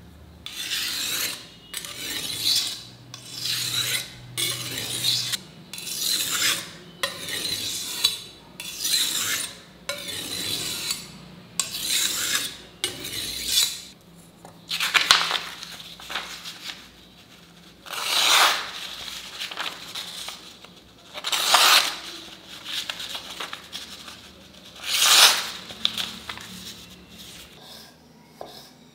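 Knife blade stroked back and forth on a sharpening stone, a steady rasp about one and a half strokes a second. About halfway through this gives way to four louder, slower slicing sweeps a few seconds apart: the freshly sharpened blade cutting through a sheet of paper to test its edge.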